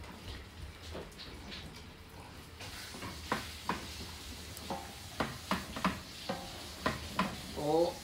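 A wooden spoon stirring seaweed soup in a stainless steel pot. From about three seconds in, the spoon knocks against the pot in a string of sharp taps. A brief wavering tone comes near the end.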